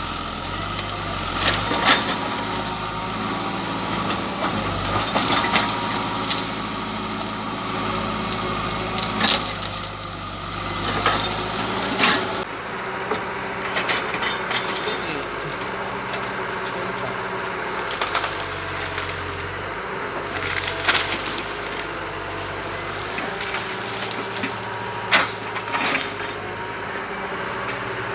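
Hitachi excavator engine running steadily under load while the machine breaks up trees and stumps, with sharp cracks and snaps of splintering wood several times.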